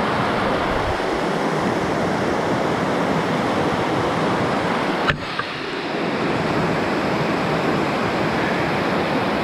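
Steady rush of a waterfall's falling water, with one short click about five seconds in.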